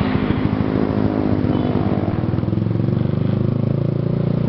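Motorcycle engine running steadily while riding, heard from the rider's own bike.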